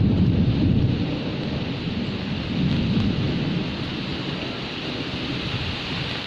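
Heavy rain falling steadily, with a low rolling thunder rumble that is loudest in the first second, swells again about three seconds in, and then fades.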